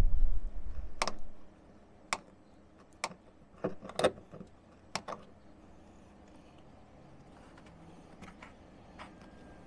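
A pick tool is pushed up from underneath through the steel floor pan and its sound deadener, making several sharp metal clicks and taps, most of them between one and five seconds in. Before the clicks there is a low rumble that stops about a second and a half in.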